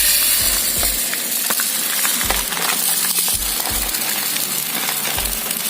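Dry whole urad dal grains rattling: many small scattered clicks over a steady hiss, with a few soft low thumps.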